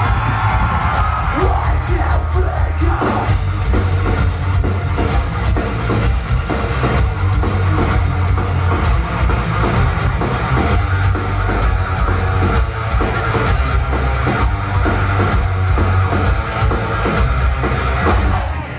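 Metal band playing live: distorted electric guitars and a drum kit over heavy bass, heard loud from within the crowd.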